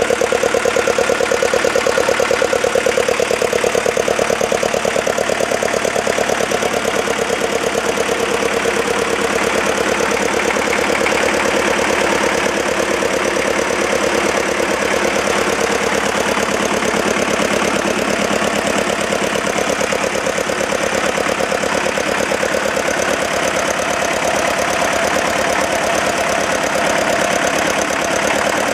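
Freshly restored Deutz 410 engine running steadily, with a fast, even firing beat.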